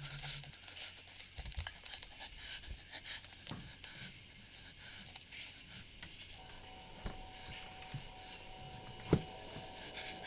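Faint rustling of bedding and breathing as a person stirs in bed, with small scratches and knocks and one sharper thump about nine seconds in. A faint steady high tone comes in about six seconds in.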